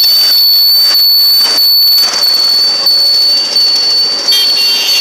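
Loud, steady noise of a moving vehicle heard from inside it as it rides through street traffic, with a constant high-pitched whine over the rush of road noise.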